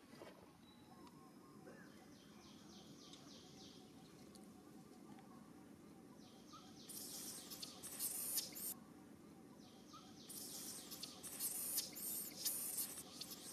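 Birds chirping in rapid series of short, high-pitched calls, faint at first and louder in bursts from about seven seconds in, over a faint steady outdoor background.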